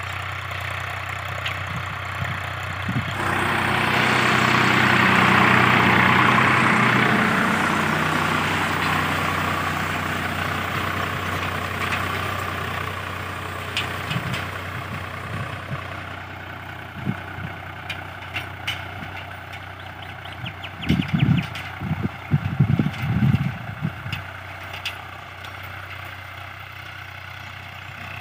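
Tractor engine running steadily. It grows louder about three seconds in and fades again over the next several seconds, and a few loud low thumps come near the end.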